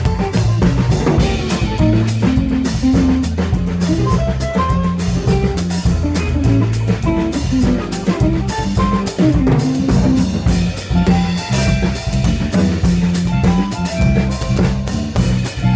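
Small live band playing: a drum kit heard close up, with a regular pattern of cymbal and drum hits, over electric bass and guitar.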